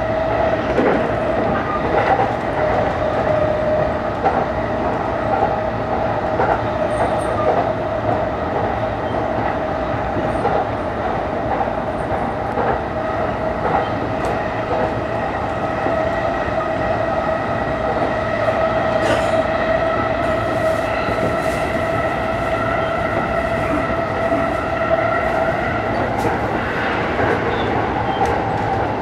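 JR East E233 series electric commuter train running at speed, heard from inside the car. There is a steady hum and rumble with a held whine at several even pitches, and occasional faint clicks.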